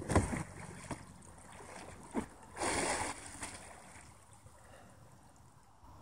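Water splashing around a capsized kayak as it is rolled back upright, with a loud burst of splashing about two and a half seconds in, then quieter lapping.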